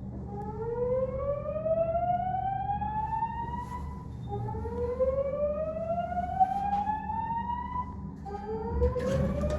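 Fire alarm voice-evacuation speakers sounding a slow-whoop alert tone: a rising sweep in pitch that repeats about every four seconds, three sweeps in all, over a low hum.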